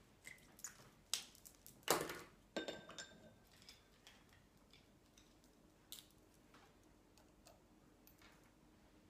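Wooden paintbrush handles clicking and knocking against each other as brushes are handled and sorted. There is a quick flurry of knocks in the first few seconds, the loudest about two seconds in with a brief ring, then a few scattered light clicks.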